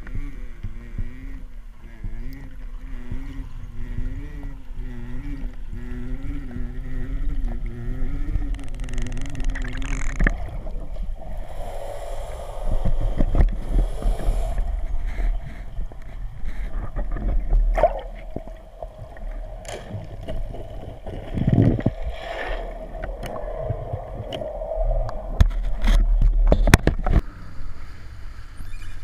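Underwater sound picked up by a spearfisher's camera: water gurgling and sloshing around the diver with a wavering hum, then scattered knocks and splashes as the diver comes up near the surface.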